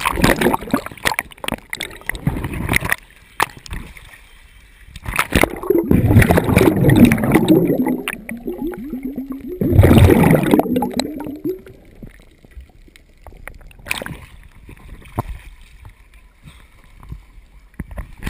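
Sea water splashing and gurgling over a GoPro camera held at the surface, in three loud surges (at the start, from about five to eight seconds in, and around ten seconds), then quieter lapping with scattered clicks.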